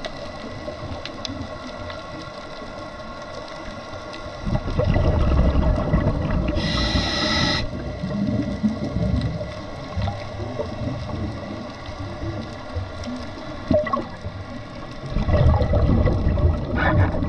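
Scuba diver's breathing on a regulator, heard underwater. Exhaled bubbles rumble from about four and a half seconds in, a short hiss of the regulator follows around seven seconds, and another burst of bubbles comes near the end.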